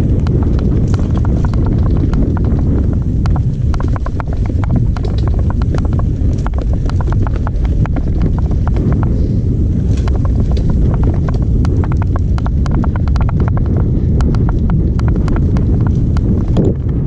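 Mountain bike rattling and clattering over a rough dirt trail at speed, with many irregular knocks from the tyres and frame, over a steady rumble of wind on the camera's microphone.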